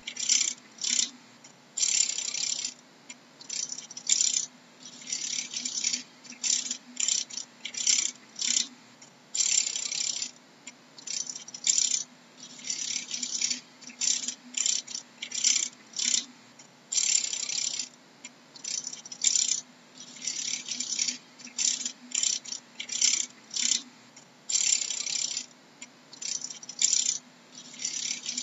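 Insect making irregular dry, raspy bursts, each from a fraction of a second to about a second long and coming at uneven gaps, over a faint steady low hum.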